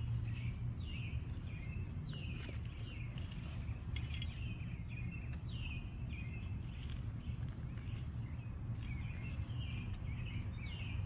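A bird calling over and over in short falling chirps, about one or two a second, over a steady low rumble, with a few faint rustles or clicks.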